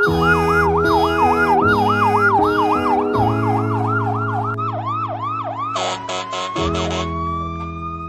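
Emergency vehicle siren in a fast up-and-down yelp, about three cycles a second, slowing and fading after about five seconds into a slowly rising tone, over music.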